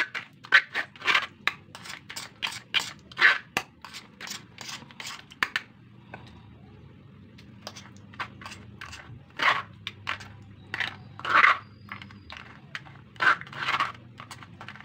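Guava pulp being pressed and scraped through a steel mesh sieve to strain out the seeds. Quick rasping scrapes, about three a second, pause briefly about six seconds in, then return as a few slower, separate strokes.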